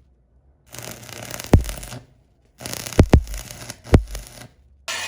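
Electric arc welding crackling in short bursts that start and stop abruptly. Several sharp metallic knocks come through it, about one and a half, three and four seconds in.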